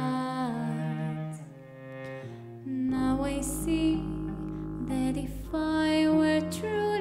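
Small band playing a slow ballad: a woman singing over piano and bowed cello, with a double bass coming in low about three seconds in.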